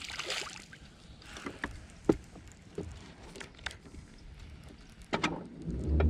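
A released bass splashing back into the water at the start, followed by a few sharp knocks and clicks from the boat and tackle. A low rumble builds up near the end.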